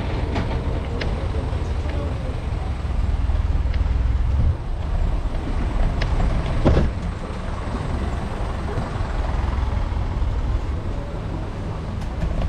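Low steady rumble of a small box truck's engine running close by as it is passed, over general street noise. A brief sharp knock sounds about two-thirds of the way through.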